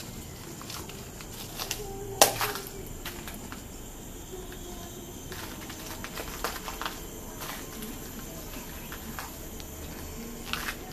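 Scattered sharp clicks and crackles over a steady faint background hiss, with one much louder click about two seconds in.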